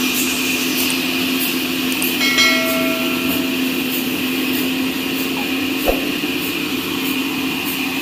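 Horizontal band sawmill running: a steady mechanical hum at a constant pitch with a hiss above it. A single sharp knock comes about six seconds in.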